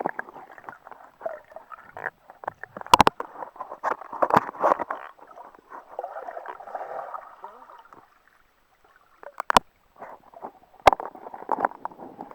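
Sea water splashing and sloshing close to the microphone as a person swims, muffled, with several sharp clicks. It goes almost silent for about a second some eight seconds in.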